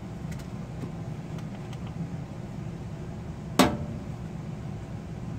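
A single sharp click-knock, about three and a half seconds in, as a small clip-on light is fastened to the raised plastic lid of a top-load washing machine, with a few faint handling clicks before it. A steady low hum runs underneath.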